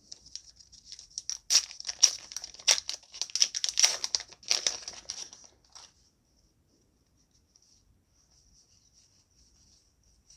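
Foil booster-pack wrapper being torn open and crinkled by hand, a dense run of crackling for about six seconds that stops.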